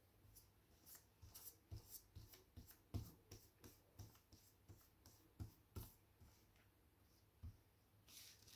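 Faint brushing and tapping of a paintbrush working paint on paper, short strokes a few times a second, thinning out near the end.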